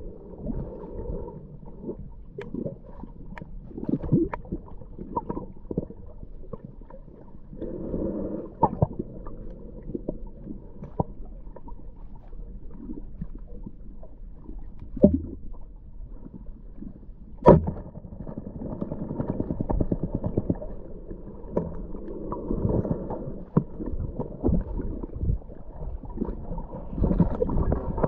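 Muffled underwater sound heard through a camera's waterproof housing: a low, swelling wash of water movement with scattered sharp clicks and knocks, the loudest about two-thirds of the way through.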